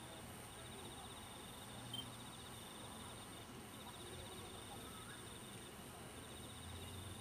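Night insects chirping faintly in a rapid pulsed trill that comes and goes, with one small tick about two seconds in.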